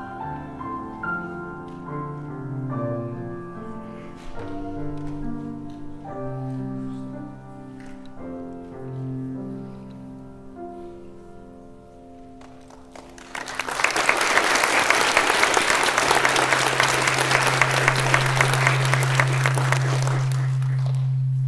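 The closing notes of a song with keyboard accompaniment, then audience applause breaking out about halfway through and lasting several seconds. A steady low hum sounds under the applause and carries on after it.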